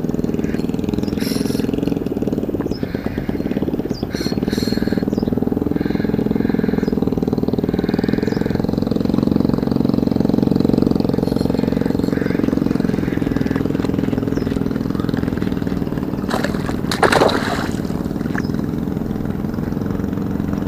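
A motor runs with a steady, even drone throughout. About three-quarters of the way through comes one loud splash as the hooked tarpon thrashes at the surface near the bank.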